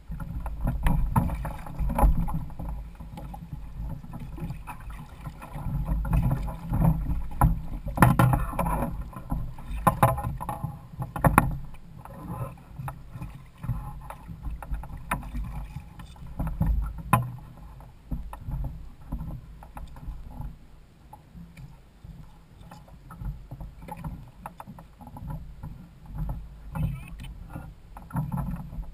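Water sloshing against a kayak's hull and outrigger floats with a steady low rumble of wind on the boat-mounted camera's microphone, broken by scattered knocks and clatter, busiest in the first half.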